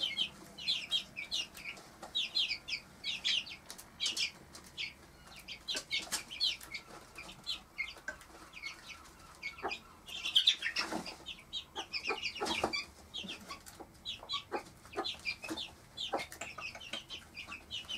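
Four-week-old Cuckoo Marans chicks cheeping constantly in rapid, high peeps, with a brief louder noise about eleven seconds in.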